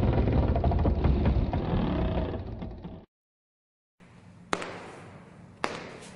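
A loud, dense rumbling noise fades away over about three seconds and cuts off abruptly. After a second of silence, sharp knocks or taps start up, about one a second, each dying away quickly.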